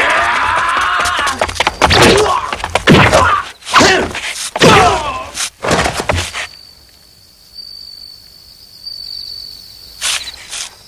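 Sword-fight sound effects: men yelling and screaming, some cries falling in pitch, over a quick run of sharp blows and thuds that stops about six seconds in. After that comes a faint steady high tone, broken by one short loud burst near the end.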